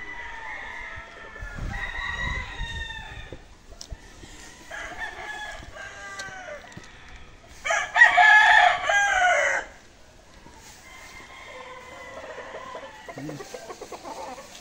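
Gamecocks crowing one after another from the pens, mostly at a distance, with one loud, close crow lasting about two seconds past the middle.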